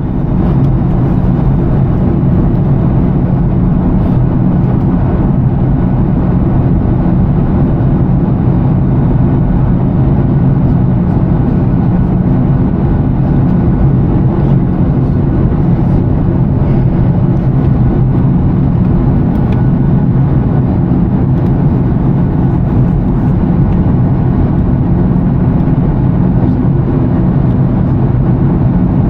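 Steady cabin drone of a Boeing 737-900ER in flight: engine and airflow noise with a low, even hum.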